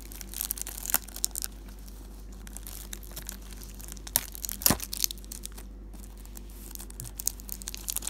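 Plastic shrink wrap being torn and peeled off a DVD case, crinkling, with scattered sharp snaps, the loudest about halfway through.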